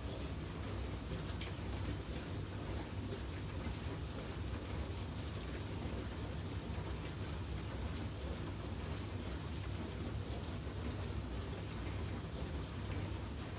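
Steady, rain-like noise with faint scattered ticks over a low hum.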